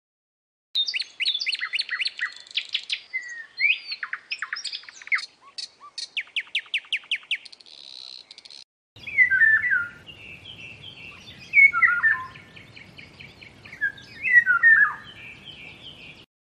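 Songbirds singing in two stretches, probably separate recordings: first a quick, varied song of chirps and rapid trills, then after a short break a second song of chirps and falling whistled notes over a faint background hiss.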